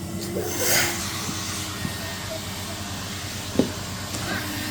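Henry vacuum cleaner motor running steadily, a hum under a rushing hiss of air, with a brief louder rush of air just under a second in and a single sharp knock about three and a half seconds in.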